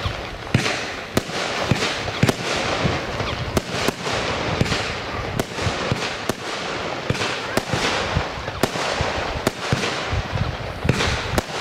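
Weco 'Terminator' 19-shot firework battery firing: sharp bangs of shots and bursts come about one to two times a second over a continuous hiss.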